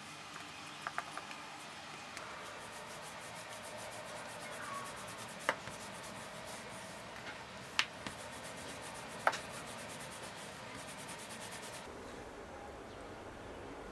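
Wooden rolling pin rolling dough out over a floured tabletop: a steady rubbing with three sharp knocks in the middle.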